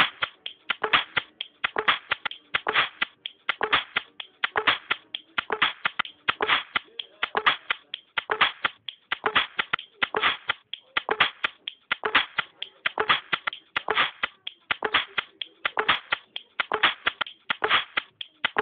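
Electronic music track driven by a fast, even pattern of sharp clap- and snap-like beats, several per second, over a faint sustained note.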